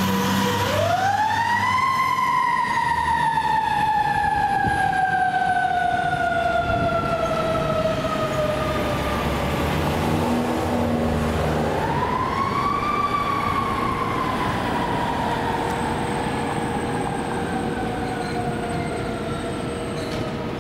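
Fire apparatus mechanical siren winding up to a high wail about half a second in, then slowly coasting down in pitch. It winds up again about eleven seconds in and coasts down slowly once more.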